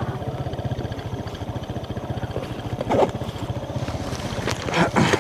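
Motorcycle engine running, a steady fast low thrum. Two short louder noises break in, about three and five seconds in.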